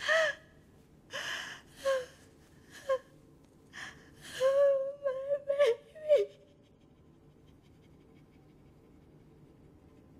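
A woman gasping and sobbing in short, catching breaths. About four and a half seconds in, this breaks into a wavering, anguished cry that stops at about six seconds.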